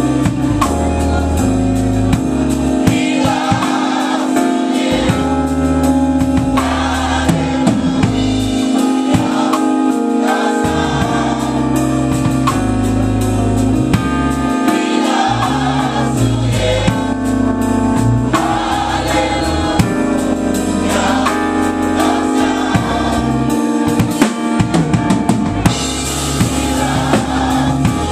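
Gospel choir singing with a live band, a drum kit and bass notes keeping time under the voices. Near the end the cymbals grow louder.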